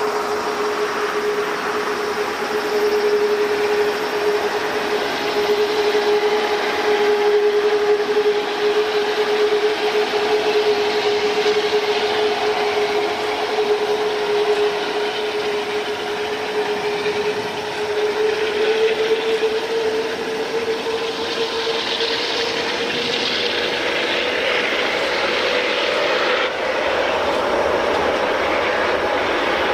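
Jet engines of a four-engine airliner running: a steady noise with a single whine whose pitch rises slightly in the second half.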